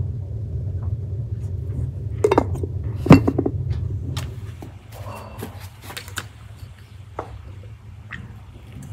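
Dishes and metal utensils clinking and knocking, with a sharp clank about three seconds in, over a low rumble that fades out about halfway through.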